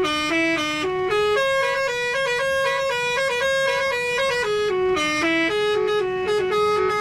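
A bus's telolet horn, a multi-trumpet musical air horn, playing a melody of held notes that step up and down without a break.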